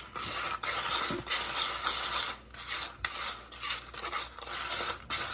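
A spoon stirring unpopped popcorn kernels with oil and seasoning in a dish: an irregular run of rattling, scraping swishes.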